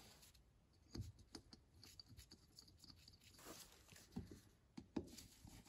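Faint scattered clicks and rustles of gloved hands handling a snowmobile carburetor, fitting the new mixture screw and its spring into the carburetor body.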